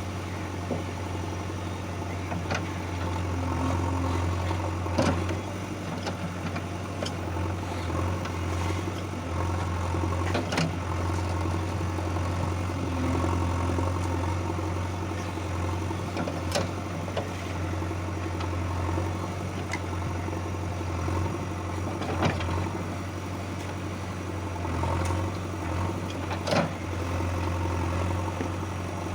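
Heavy diesel machinery engine running steadily at a low hum, with occasional sharp knocks, about six across the stretch.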